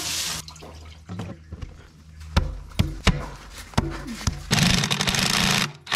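A garden hose spray nozzle hissing against a concrete tub floor, cut off within the first half-second. Scattered clicks and knocks follow, then a loud steady noise of unclear source for about a second and a half near the end.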